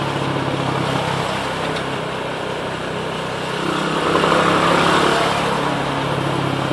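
Rusi SS250 sport motorcycle's engine running steadily while riding in city traffic, with wind and road noise; the sound swells for a second or two about four seconds in.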